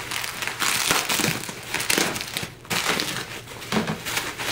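Plastic bubble wrap crinkling and rustling as it is handled and pulled open, in irregular bursts with a short pause about two and a half seconds in.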